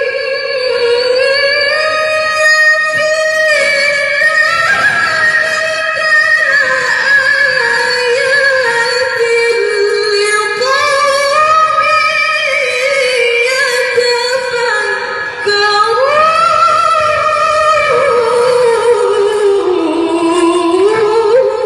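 A woman's voice reciting the Quran in melodic tartil style: long, high, ornamented phrases drawn out and bending up and down in pitch, with a short breath about fifteen seconds in.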